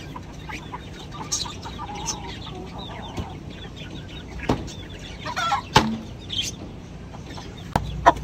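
Caged chickens clucking softly, with two sharp knocks about halfway through. A steady low hum sets in near the end.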